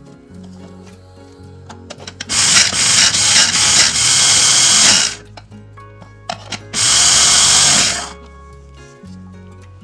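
Electric mini chopper running in two pulses, the first about three seconds long and the second just over a second, chopping onion as a hand presses down on its top.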